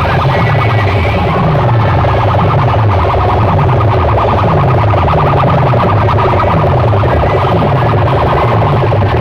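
Loud, distorted dance music blasting from a large DJ sound-box system. A deep bass note slides downward about once a second under a fast, driving beat.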